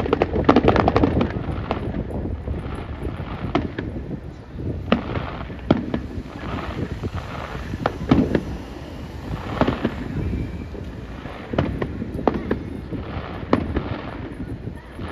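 Aerial fireworks going off: a dense run of crackling pops in the first second and a half, then single sharp bangs every second or two.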